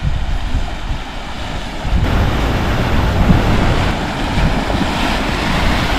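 Fiat Pulse driving on a flooded road: engine and tyre rumble with a rushing noise of water and rain, louder from about two seconds in.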